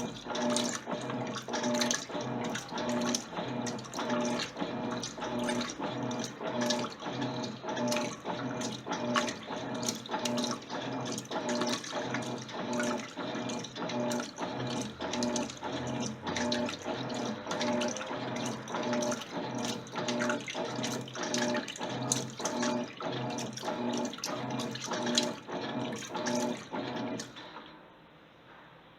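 Electrolux LTC10 top-loading washing machine agitating a load of jeans: the motor hums in a regular pulse, a little more than once a second, with water sloshing in the tub. The motion stops for a moment near the end.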